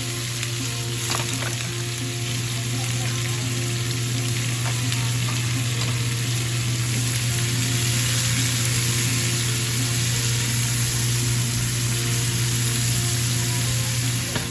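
Chicken frying in hot oil in a pan, a steady sizzle over a constant low hum.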